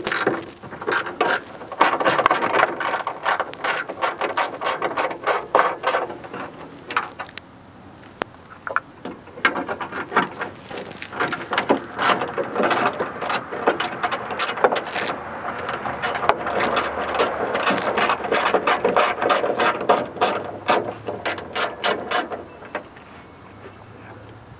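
Socket ratchet clicking rapidly as it backs out the 5/16-inch bolts holding a starter solenoid to the inner fender. The clicks come in two long runs with a short pause about seven seconds in.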